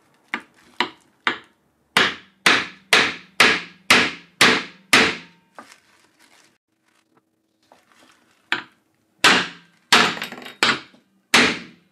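Claw hammer striking a lava lamp's soda-lime glass bottle, wrapped in a plastic bag and lying in a frying pan: sharp knocks, three light taps, then seven hard blows about two a second, a pause of about three seconds, then five more blows. The bottle resists and does not break.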